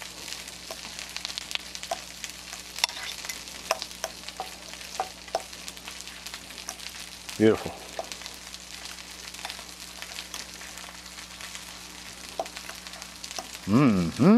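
A fork stirring coleslaw in a glass bowl, with short clicks and scrapes against the glass, thickest in the first half, over a steady sizzle of catfish frying in oil on a griddle.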